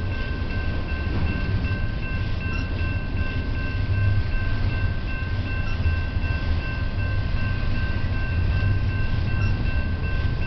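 Double-stack intermodal container well cars rolling slowly past with a steady low rumble, over the constant high-pitched ringing of a railroad crossing's warning bell.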